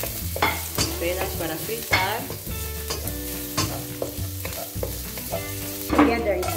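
Chopped shallots and garlic sizzling in hot oil in a wok while a wooden spatula scrapes and knocks around the pan, with squeaky scrapes along the way. A louder scrape comes about six seconds in as more vegetables are pushed into the wok.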